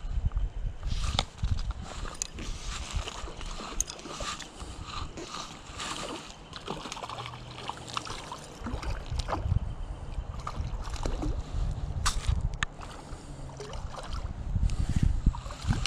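Stream water sloshing and splashing close by, with uneven low rumbling on the microphone and scattered small clicks and rubs from handling the fly rod and line.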